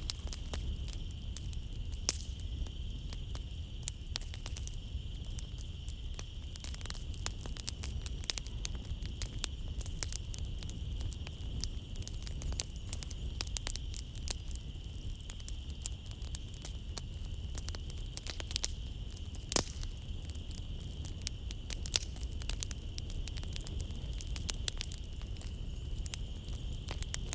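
Wood fire crackling in a fireplace: irregular sharp pops and snaps over a low steady rumble, with a continuous high chirring of crickets behind it.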